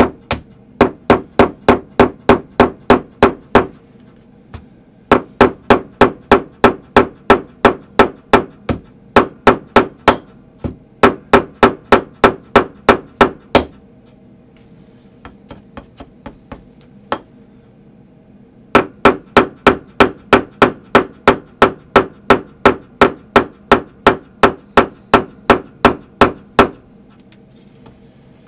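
Tack hammer tapping a brad through an upholstered panel, quick light strikes about three or four a second in long runs, with a pause of a few seconds midway.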